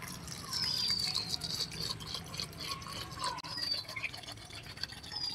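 Water poured from a plastic bottle into a stainless-steel mixer-grinder jar over crushed ice and mint leaves: a steady splashing trickle as the jar fills.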